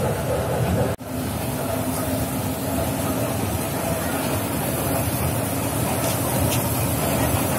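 Small electric kiddie ride train running along its rail track, a steady low running noise that cuts out for an instant about a second in.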